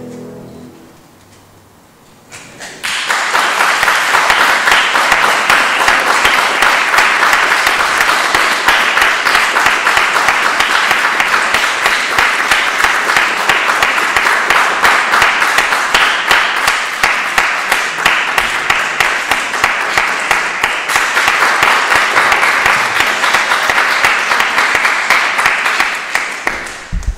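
A grand piano's last chord fades away, and after a short hush an audience breaks into steady applause about three seconds in, which stops abruptly near the end.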